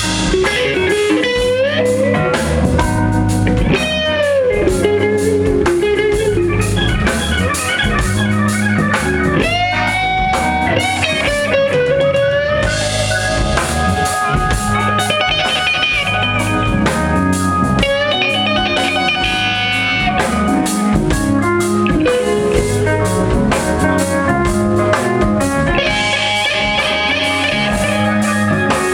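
Live rock band playing an instrumental passage: an electric guitar takes a lead line full of string bends and slides over bass and a drum kit.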